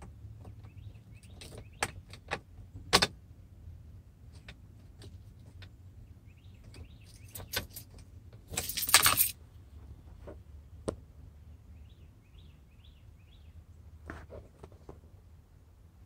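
Ignition key and key ring clicking and jangling as a start is tried on a 2003 Chevy Suburban that will not crank, with a harsh buzzing rattle lasting under a second about halfway through. The engine does not turn over while the battery voltage sags from about 12.4 V to about 5 V.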